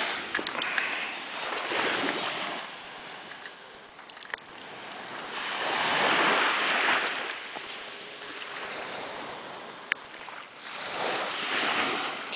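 Small sea waves breaking and washing up a sandy shore, the hiss swelling and fading every four to five seconds. A couple of short clicks are heard in between.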